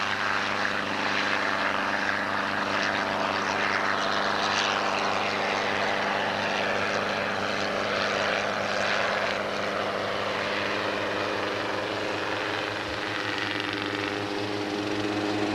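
A Hughes 300 light piston helicopter in flight: a steady engine drone under the noise of the main rotor blades.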